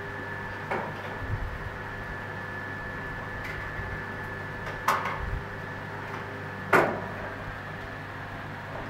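Steady hum of running aquarium equipment with a thin high whine through it. Three sharp knocks come about a second in, about five seconds in and near seven seconds in, the last the loudest.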